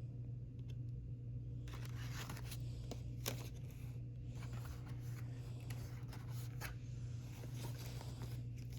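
Album packaging being handled and opened: irregular rustling, scraping and tearing with sharp clicks, starting about two seconds in, over a steady low hum.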